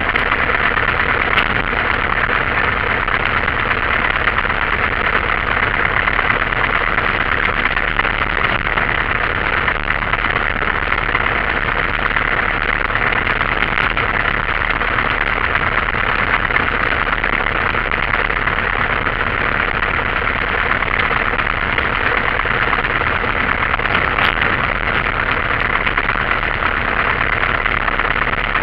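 Single-engine light aircraft's engine and propeller turning over at low idle power, heard from inside the cabin. A steady, even drone that holds unchanged throughout.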